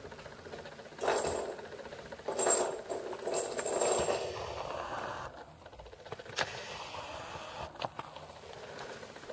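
Kittens playing with dangling string toys on a wooden floor: three bursts of rattling and scuffling in the first half, then a few sharp taps. Under it runs the steady noise of the camera lens's vibration-reduction (VR) motor.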